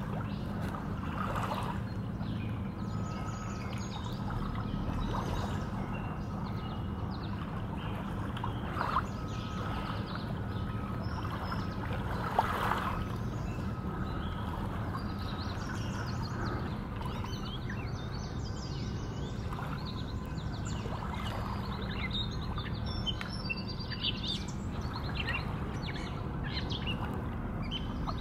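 Calm river ambience: scattered bird chirps over a steady low rumble, with two brief louder knocks about nine and twelve seconds in.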